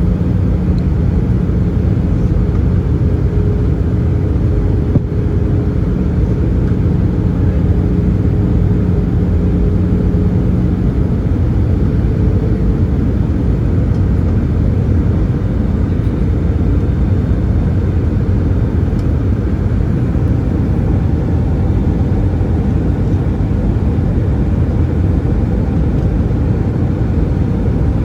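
Steady cabin noise inside an Airbus A320-214 airliner: a dense rush of air and the drone of its CFM56-5B engines. A low hum within it fades out about eleven seconds in.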